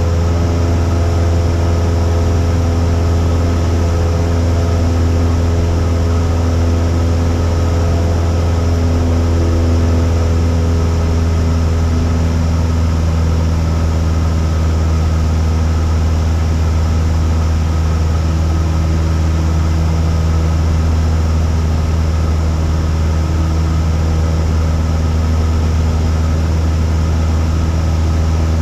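Cessna 172's piston engine and propeller droning steadily in flight, a constant low hum with steady overtones.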